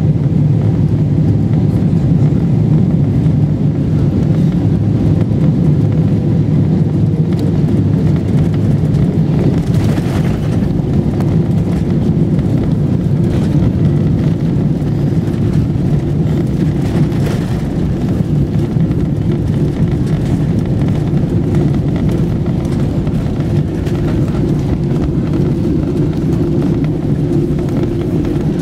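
Steady low rumble inside the cabin of a Boeing 777-300ER taxiing after landing, its GE90 engines running at idle. A faint tone sinks slowly in the first few seconds.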